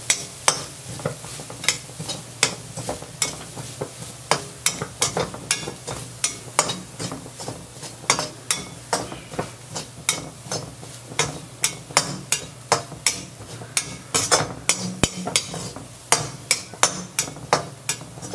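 A spatula scraping and knocking against a kadai, about two to three strokes a second, as grated coconut is stirred nonstop while it roasts on a low flame.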